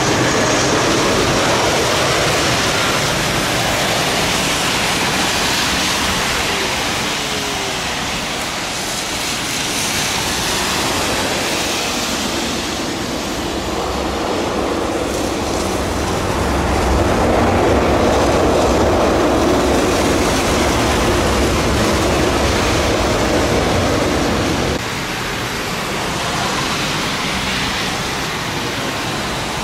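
Jet airliner noise from an Airbus A320 landing on a wet runway: a steady rushing noise that grows louder and deeper a little past halfway, then drops suddenly about five seconds before the end.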